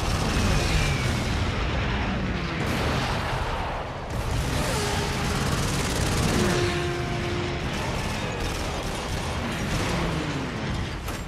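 Film battle sound of warplanes diving past, their engine pitch sliding down several times, over a dense, continuous din of gunfire and booming explosions.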